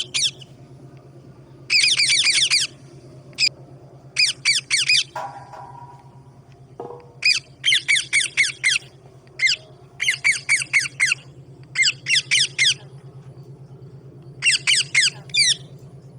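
Parrot calling in runs of short, harsh screeches, each falling in pitch, several in quick succession and then a pause, repeated many times. A steady low hum runs underneath.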